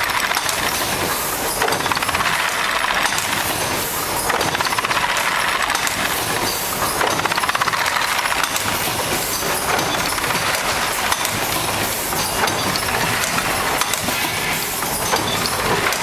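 Automatic battery shrink-sleeve wrapping machine running: a steady mechanical clatter from its pneumatically driven mechanism.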